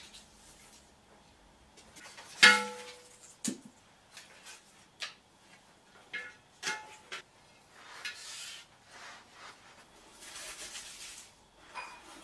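Intermittent rustling and snapping of a peace lily's large leaves as dead leaves are handled and pulled off, with scattered sharp clicks; the loudest is a brief ringing click about two and a half seconds in.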